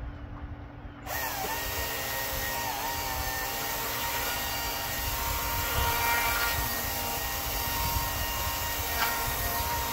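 A motorised power tool running steadily, cutting in suddenly about a second in with a high whine that wavers slightly at first and then holds.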